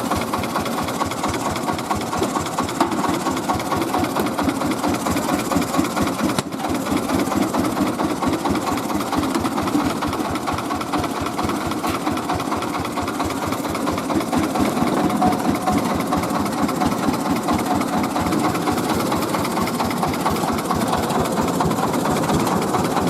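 Mobile rice-milling machine running steadily, its engine and milling works making a fast, even pulsing.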